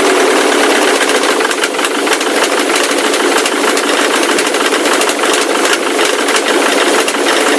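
Ford Mondeo Mk3 turbo-diesel engine running with a persistent knocking, an engine knock that the owner cannot explain.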